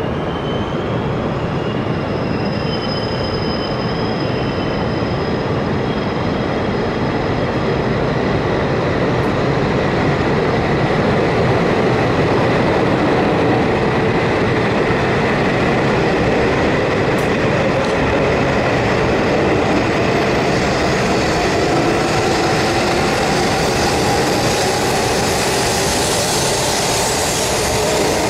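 E5 series Shinkansen pulling away from the platform and gathering speed: a steady rush of running noise from the passing cars, with a motor whine that slowly rises in pitch as the train speeds up, growing a little louder partway through.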